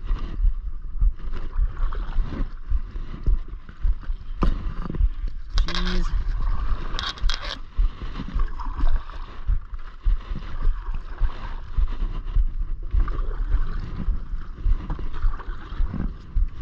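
Canoe being paddled: paddle strokes splashing and water gurgling along the hull, with irregular low bumps throughout.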